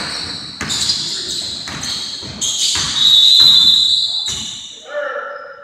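A basketball game on a hardwood court: the ball thuds on the floor several times while sneakers squeak, with the loudest, longest squeak about three seconds in.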